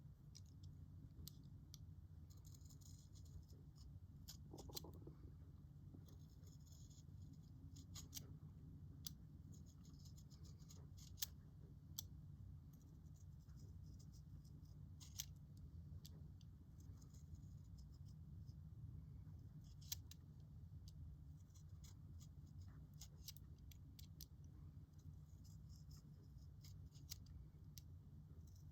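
Utility knife shaving wood off a pencil by hand: faint, short scraping strokes repeated every second or two, with a few sharp clicks as the blade catches or shavings come away, over a low steady hum.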